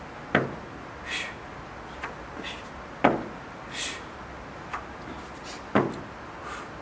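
Feet landing on a rubber gym floor during half burpees: three heavy thuds about every two and a half to three seconds, with lighter taps between them. Two short sharp breaths out follow the first two thuds.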